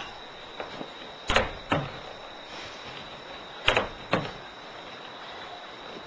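Four sharp thumps in two quick pairs from a martial artist's fast, powerful movements on a wooden floor.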